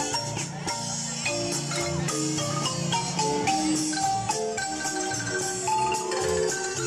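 Marimba music playing a lively dance tune, a running melody of struck notes over a steady low accompaniment.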